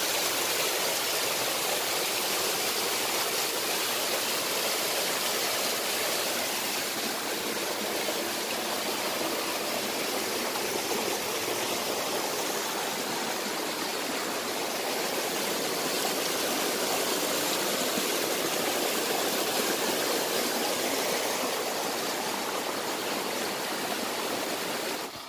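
Shallow rocky stream running over boulders and rock ledges: a steady rush and splash of flowing water.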